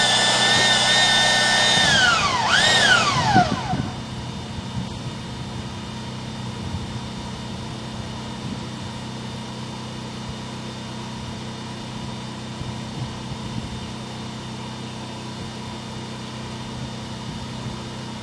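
Power-driven drain-cleaning machine spinning a root-cutting head at full speed with a steady high whine, then shut off about two seconds in: the whine falls in pitch, revs up briefly once, and winds down. A steady low hum carries on after it stops.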